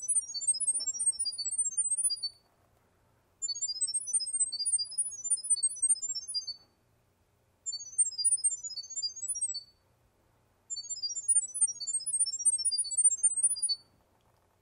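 The Litmor app on a smartphone plays rapid, high-pitched chirping beeps that hop up and down in pitch, in four bursts of two to three seconds with short pauses between them. This is a sound-wave pairing signal that sends the Wi-Fi details to the battery security camera.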